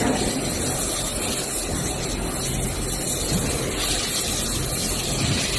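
Steady machinery noise of a running roller welding production line: a constant hiss over a low hum.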